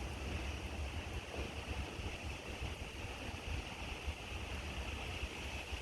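Wind buffeting the microphone: a gusty low rumble over a steady hiss.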